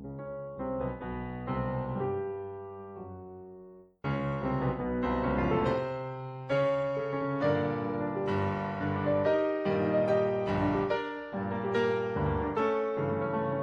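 Background piano music. About four seconds in it cuts out for a moment, and a louder, brighter passage begins.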